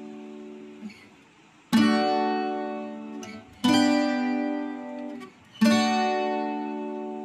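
Background music: three strummed guitar chords about two seconds apart, each left to ring and fade.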